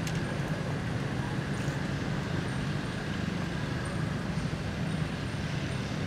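Steady rumble of road traffic and motor engines in the background, with no single event standing out.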